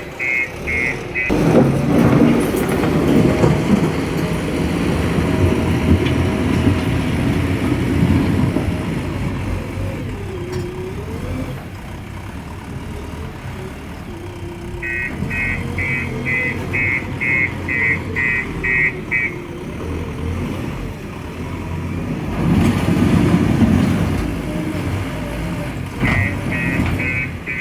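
JCB 3DX backhoe loader's diesel engine running under working load, its pitch rising and falling as the machine levels ground. A reversing alarm beeps steadily at about two to three beeps a second in three spells: at the start, in the middle and near the end.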